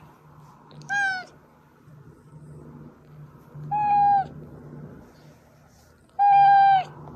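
A domestic cat meowing three times, about three seconds apart. Each call holds its pitch and drops at the end, and the last is the longest and loudest.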